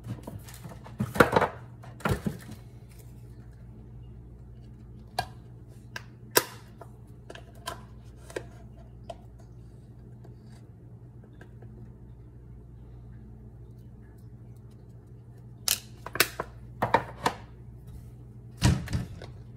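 Kitchen containers and utensils being handled: scattered sharp clicks and knocks, a few loud ones about a second in, sparse ticks in the middle and a cluster near the end, over a steady low hum.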